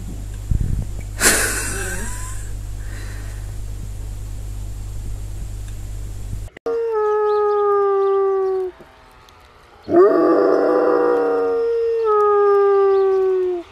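A dog howling: two long, drawn-out howls that each slowly fall in pitch, beginning about halfway through after a stretch of low hum.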